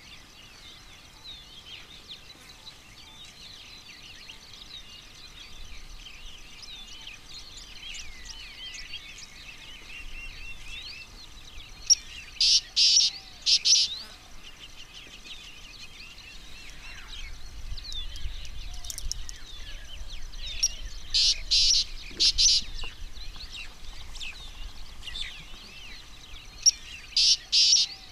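Wild birds chirping and calling continuously. Three times, a loud cluster of three or four short, harsh, hissing bursts cuts through the birdsong.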